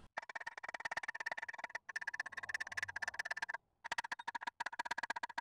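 Chipping hammer rapidly tapping slag off a fresh weld on the steel flange of a catalytic converter, fast metallic taps with a steady ring from the metal. The tapping breaks off briefly a couple of times.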